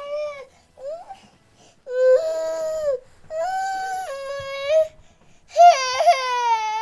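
Infant crying: two short cries, then three long wails, each broken by a brief catch of breath, the last wavering and falling in pitch.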